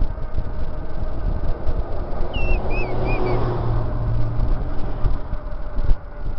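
Wind buffeting the microphone of a handlebar-mounted camera on a bicycle moving fast downhill, with a motor vehicle passing and humming louder around the middle. A few short, wavering high chirps come about two and a half seconds in.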